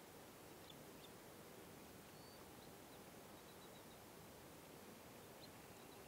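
Near silence: faint outdoor background hiss with a few short, high bird chirps scattered through.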